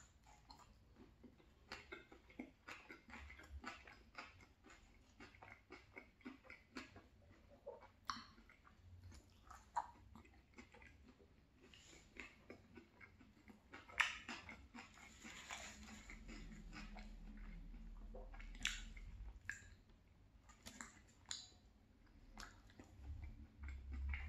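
Close-up chewing of saucy fried chicken 65: soft, wet chews, smacks and small clicks of the mouth. A low steady hum joins in for a few seconds past the middle.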